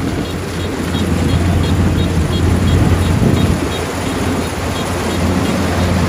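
Kubota combine harvester running while it cuts rice: a steady low engine drone under a broad rushing noise, getting louder as the machine draws near.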